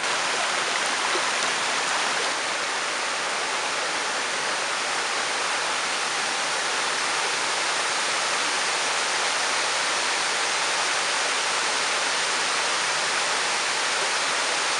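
Shallow river water running over stones and a riffle in a steady rush.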